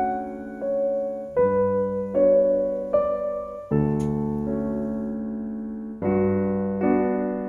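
Background piano music: slow, gently struck notes and chords that ring on and fade between strikes.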